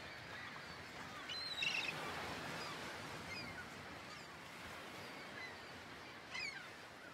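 Faint outdoor ambience: a steady hiss with a few short bird calls, the clearest about one and a half seconds in and another near the end, slowly fading away.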